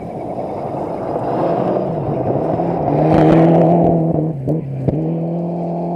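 Mitsubishi Lancer Evo IX rally car's turbocharged four-cylinder engine running hard as it approaches and slides through a gravel corner, growing loudest about halfway through with a spray of gravel. The revs dip briefly and pick up again, with two sharp cracks about three-quarters of the way through.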